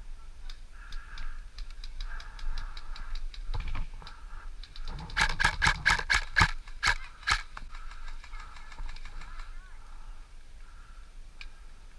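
Airsoft guns firing in rapid runs of sharp pops and clicks, the loudest shots about five to seven and a half seconds in.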